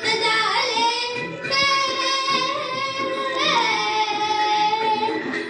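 A young girl singing solo in phrases of long held notes, with short breaks between them.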